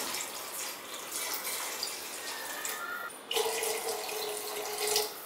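Water poured in a steady stream from a glass jug into a pressure cooker of chickpea masala, running into the pot. The pour grows louder and brighter about three seconds in.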